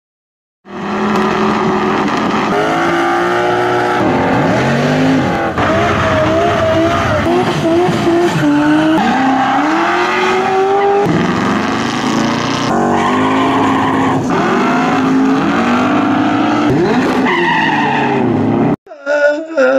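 Car engines and squealing tires, with many overlapping pitches rising and falling, cutting off suddenly near the end.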